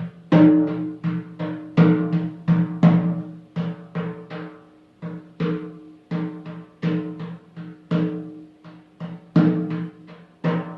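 A drum with a ringing low pitch, beaten in a steady rhythm of about three strokes a second. It is the beat given to keep time for chanting the seed syllables.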